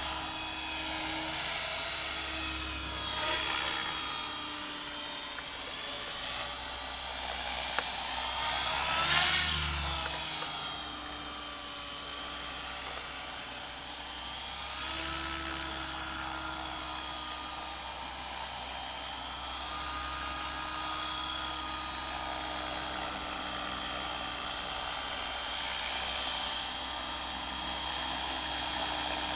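Align T-Rex 500 electric RC helicopter flying low, its Scorpion brushless motor and rotor head giving a steady high whine. The whine climbs and falls back about nine seconds in, and again briefly around fifteen seconds.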